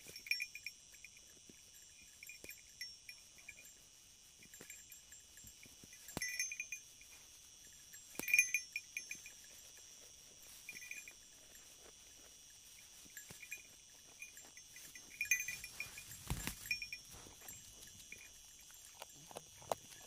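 Sheep grazing close by, with short bright ringing sounds now and then and a rustle near the end, over the steady high drone of crickets.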